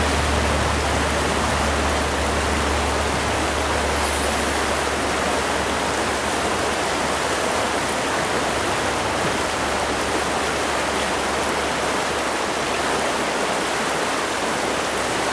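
Rushing water of a fast, rocky trout-stream riffle: a steady, unbroken rush.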